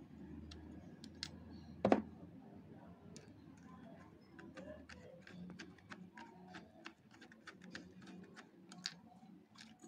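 Small metallic clicks and ticks of a screwdriver working the Phillips screw that holds the blades of a Wahl hair clipper, with one louder knock about two seconds in.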